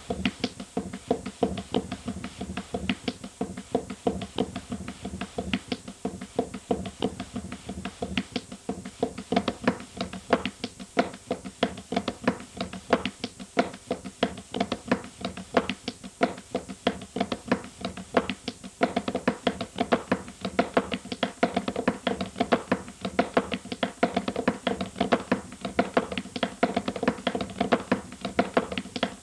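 Hands patting and slapping flatbread dough in a quick, uneven run of taps, several a second, over a steady musical drone that grows fuller a little past halfway.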